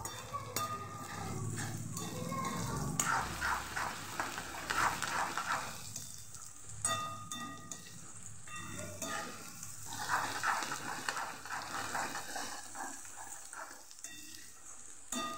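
Chopped green onions and garlic sizzling in hot oil in a metal kadai, being sautéed until soft, with a metal spatula scraping and stirring against the pan in spells.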